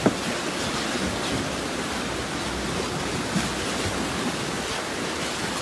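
Steady rush and splash of rough sea water churned up by a large pod of dolphins surfacing around a boat. There is one brief knock right at the start.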